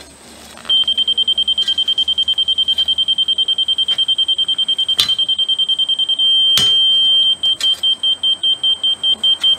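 Laser level receiver on a grade rod sending out rapid high-pitched beeps while the screed pipe is set. It turns to a solid tone for about a second, the on-grade signal, then goes back to slower beeps. Two sharp knocks are heard partway through.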